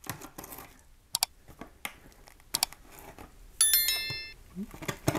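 Knife blade scraping and slicing through packing tape on a cardboard box, heard as a series of short scratches and clicks. About three and a half seconds in, a bright bell-like chime rings for under a second, the sound effect of a subscribe-button animation.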